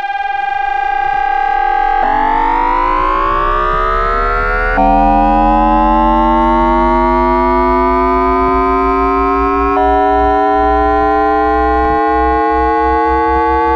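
Siemens IGBT-VVVF inverter and traction motor of an NYC Subway R160B accelerating, picked up electrically by an inductor rather than a microphone. It starts as a steady tone from the 400 Hz asynchronous carrier. About two seconds in it switches suddenly to synchronous multi-pulse PWM, a high-pitched chord of tones that glides steadily upward with speed, with further abrupt pitch steps near five and ten seconds in.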